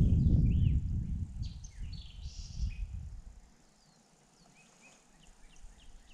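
Wild birds chirping in the riverside brush, with a low rumble under them that fades out about three and a half seconds in. Near the end the birds give a quick run of short chirps.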